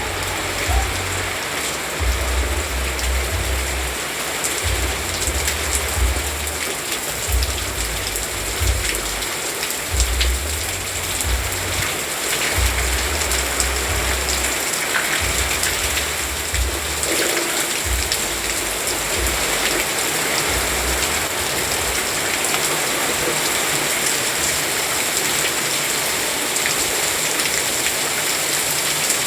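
Steady, heavy rain falling, a dense even hiss of drops. A low rumble comes and goes in uneven stretches through the first two-thirds, then stops.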